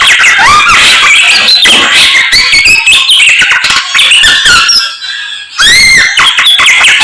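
Samyong songbird singing loudly: a rapid, varied run of whistles, chirps and pitch glides, with a brief pause about five seconds in before a long arched whistle.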